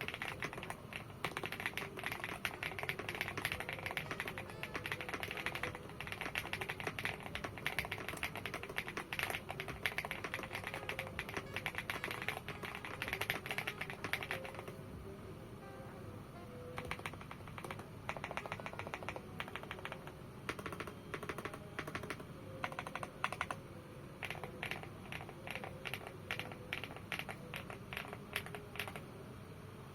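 Typing on a foam-filled, tape-modded GMK67-s custom mechanical keyboard with mostly Noir Skyline tactile switches and Cherry-profile PBT keycaps: rapid keystrokes for about half the time, a short lull, then typing again at a varying pace. Soft background music runs underneath.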